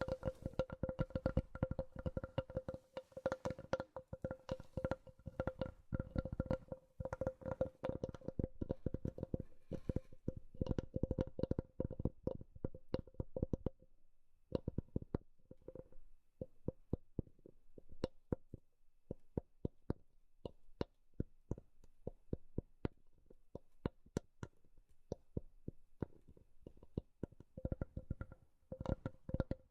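Rapid tapping on a hollow-sounding wooden object, each tap ringing with the same resonant tone. The taps come in a fast, dense flurry for about the first half, then slow to separate, spaced taps, and quicken again near the end.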